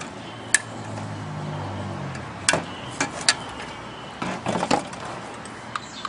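Sharp clinks and knocks of tools and metal parts as a refrigerator is taken apart for scrap, with a quick run of knocks a little after four seconds in. A low hum sits under the first two seconds.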